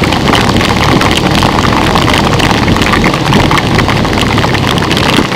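Motorcycle riding through heavy rain: a steady, loud rush of rain and wind over the engine's running.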